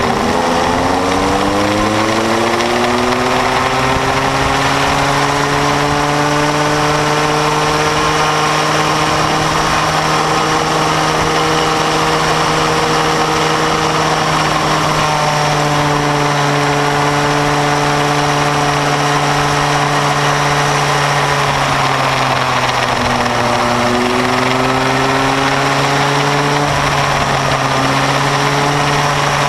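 Bambino go-kart's small engine running hard, heard from on board the kart. The revs climb over the first couple of seconds and then hold mostly steady. About two-thirds of the way through they dip briefly and climb again, with wind and road noise underneath.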